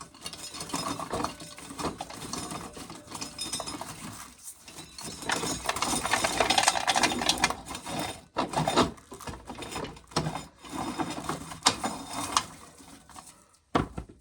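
Corn sheller working through ears of corn: a mechanical clatter of turning gears and rattling kernels and cobs, denser and louder for a couple of seconds in the middle.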